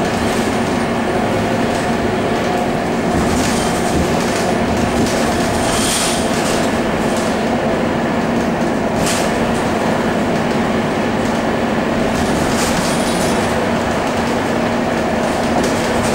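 Cabin noise of a Scania K230UB bus under way: the Scania DC9 diesel engine and ZF Ecomat automatic transmission running at a steady hum, with road noise and a few brief hissing sounds over the top.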